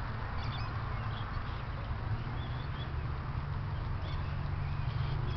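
Open-air background of a steady low rumble and hiss, with a few faint, short high bird chirps.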